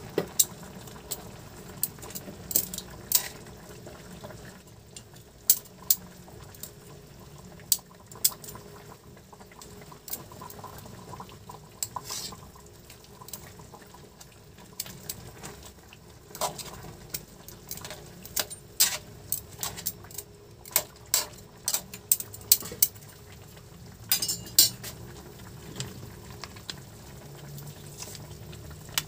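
Metal tongs clinking and scraping against a metal wok as pork chops and potatoes are turned, many separate sharp clinks, over the steady bubbling of the simmering broth.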